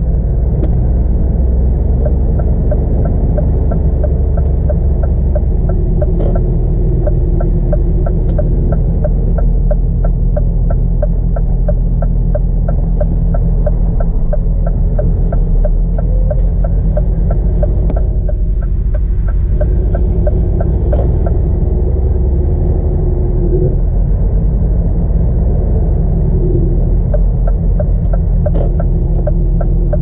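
Scania R450's 13-litre straight-six diesel running steadily on the move, a low rumble heard inside the cab. Over it the turn indicator ticks about three times a second, stopping a little past halfway.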